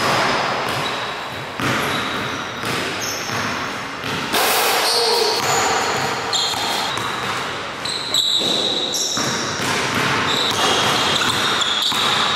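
A basketball being dribbled on a hardwood court, with sneakers squeaking in short high squeals as the players cut and defend.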